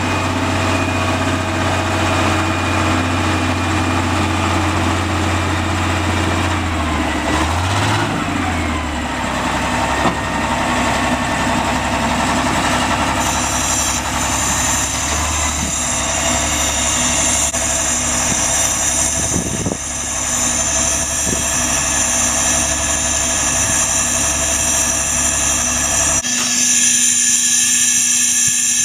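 Plymouth industrial narrow-gauge locomotive's engine running steadily, its speed sagging and picking back up about a third of the way in. Near the end the sound switches suddenly to a steady higher-pitched hum with hiss.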